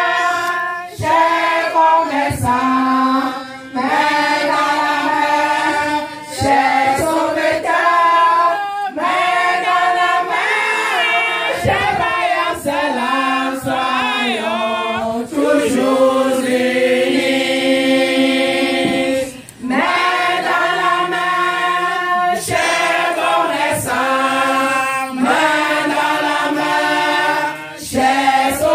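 A group of women singing together without instruments, in phrases broken by short pauses, with one voice leading through a microphone.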